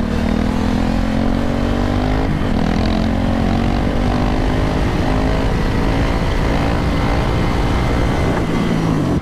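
Motorcycle engine pulling hard under acceleration: its pitch climbs, drops briefly about two seconds in at a gear change, then climbs slowly again. Near the end a second, lower engine note falls away.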